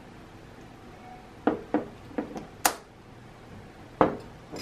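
Metal spoons knocking and clinking against a ceramic bowl and a seasoning bottle while cubed raw salmon is dressed and mixed: several short sharp knocks starting about a second and a half in, the loudest a heavier knock near the end.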